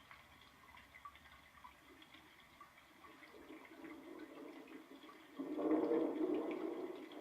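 White noise machine playing one of its recorded water sounds through its small speaker: faint scattered drips at first, then a watery rush that builds from about three seconds in and swells abruptly louder just after five seconds.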